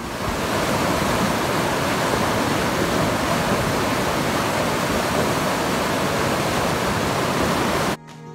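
Canal water swollen by rain rushing and churning through a small dam: a loud, steady hiss of turbulent water. It cuts off suddenly near the end.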